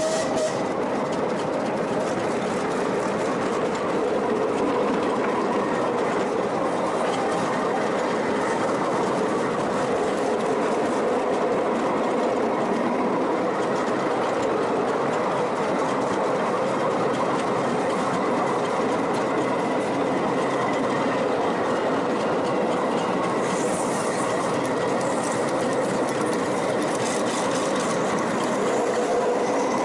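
Miniature railway passenger cars running along the track behind a small steam locomotive: the steady running noise of wheels on the rails, with a brief hiss about three-quarters of the way through.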